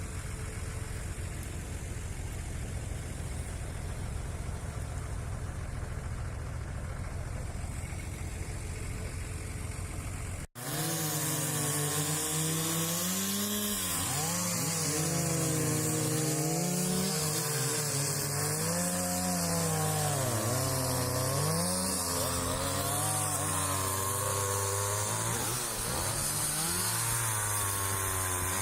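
A vehicle engine idles steadily. After an abrupt cut about ten seconds in, a small engine such as a chainsaw runs with its pitch dropping and rising again and again, as it does when the saw is working through wood.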